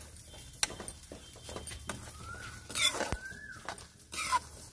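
Steel ladle scraping and clinking against an aluminium kadhai as semolina is stirred while it roasts in ghee, with irregular knocks, the loudest about three seconds in. A bird's thin whistle rises and then falls from about two seconds in.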